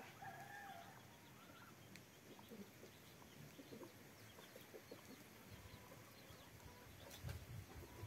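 Near silence with faint farm-fowl calls: a soft cluck in the first second, then scattered faint chirps, and a low rumble in the last couple of seconds.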